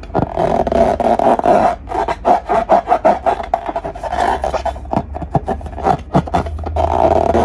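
Hands working slime and balloons: continuous rubbing and squishing full of quick small clicks and crackles.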